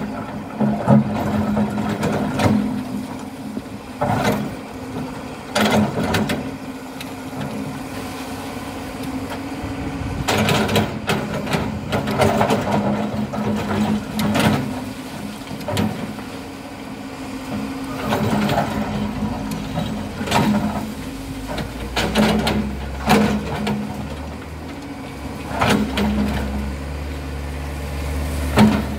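Excavator's diesel engine running steadily, with repeated clanks and knocks every second or two. A deeper low rumble joins in about three-quarters of the way through.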